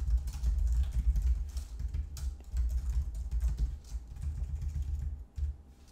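Fast typing on a computer keyboard: a quick run of keystrokes that thins out and stops shortly before the end.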